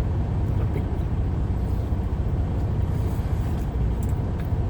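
Steady low rumble of a car engine idling, heard from inside the cabin, with a few faint clicks near the end.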